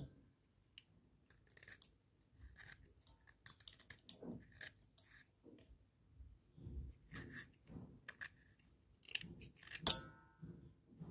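A wet slate pencil being scraped and cut into small pieces with a thin blade: irregular soft crunches, scrapes and clicks. Near the end comes one much louder sharp click with a brief metallic ring.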